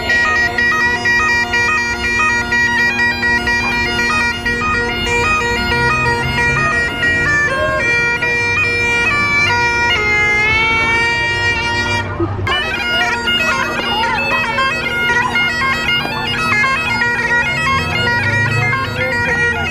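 Highland bagpipes played solo: steady drones sound under the chanter's melody. Around ten seconds in the tune bends and wavers, breaks off for a moment, then carries on over the unbroken drones.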